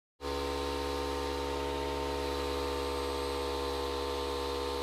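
Electric air compressor running steadily to fill its tank, a constant mechanical hum with several steady tones. It cuts in a moment after the start.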